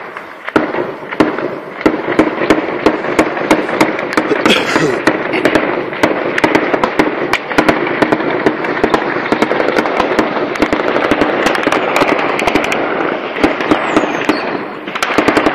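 Sustained small-arms gunfire: a dense crackle of many shots, with louder single cracks standing out again and again.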